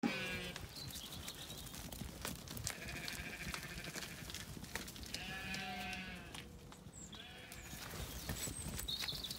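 Zwartbles sheep bleating about five times, each call short and quavering, a second or two apart, over scattered small knocks and rustles.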